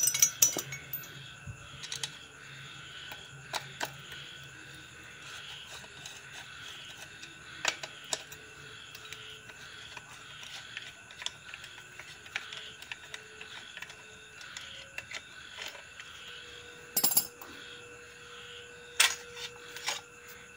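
Scattered metallic clicks and clinks of a T-handle wrench on the two bolts holding a chainsaw's muffler as they are loosened and the muffler is taken off, with a few louder clinks near the start and again near the end.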